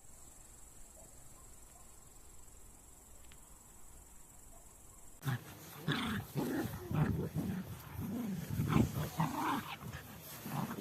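A large animal making loud, low-pitched vocal sounds in quick, irregular succession, starting about halfway through after a faint steady hum.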